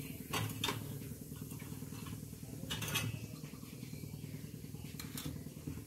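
Mustard seeds sizzling in hot oil in a kadhai, with a few sharp pops scattered through, over a steady low hum.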